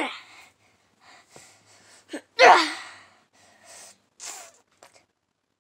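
A person's short, breathy non-speech vocal bursts, the loudest about two and a half seconds in, with a noisy onset and a falling pitch.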